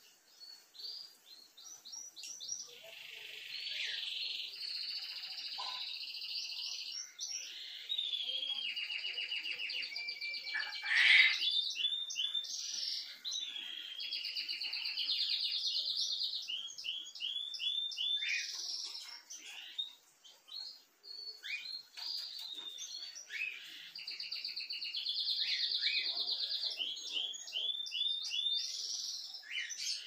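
A songbird singing: long, fast, high-pitched trills mixed with runs of quick chirps, the phrase repeating several times. The loudest point comes about eleven seconds in.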